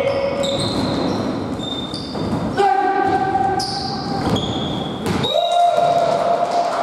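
Volleyball rally in an echoing gym hall: the ball being set and spiked, with sneakers squeaking on the court floor. Two longer held squeals come about two and a half seconds in and again near the end.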